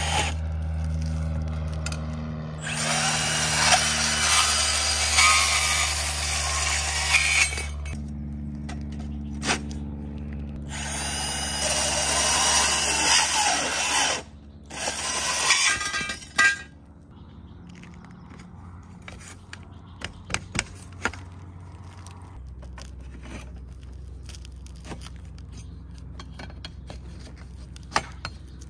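Cordless band saw cutting through an IronRidge XR10 aluminium racking rail in several passes with short pauses. The cutting stops about halfway through, and a few light clicks and knocks follow as the rail is handled.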